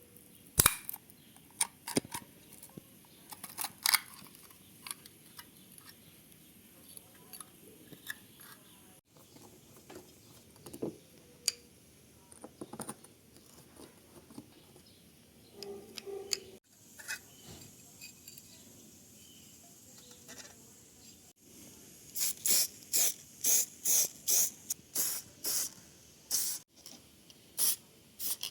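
Small workshop hand-work noises: scattered light clicks and taps, then near the end a run of short hissing strokes, about two a second.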